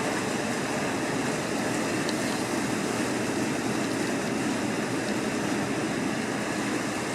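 Steady vehicle running noise, an even rush with no distinct knocks or rhythm.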